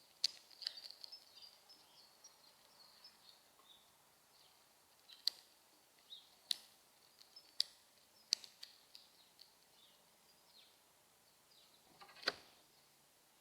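Northern cardinal cracking sunflower seeds and pecking at a feeder: sharp clicks at irregular intervals, the loudest about twelve seconds in, with faint high chirps behind.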